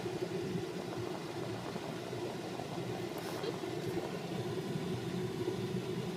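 Steady low hum of a running vehicle.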